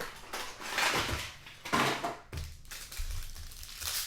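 Packaging of a sealed trading-card box being torn and handled, heard as a few rough rasping bursts of plastic wrap and cardboard.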